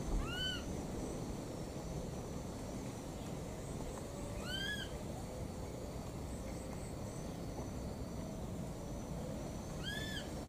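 A baby monkey calling three times, several seconds apart, each a short high cry that rises and falls: an infant's call for its missing mother.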